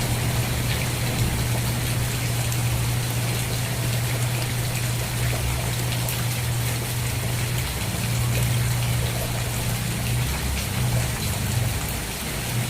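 Steady rain falling, with scattered sharp drop ticks over an even hiss and a steady low rumble underneath.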